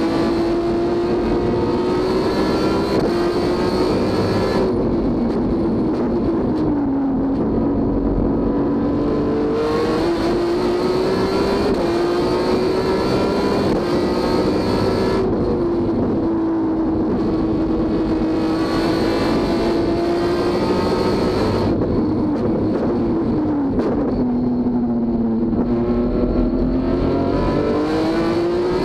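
BMW S54 straight-six race engine heard from inside the cockpit, running hard with its pitch climbing and stepping through gear changes. Three times, about five, fifteen and twenty-two seconds in, the note falls and the harsh top end fades as the throttle is lifted for a corner. Each time the engine then picks up and climbs again.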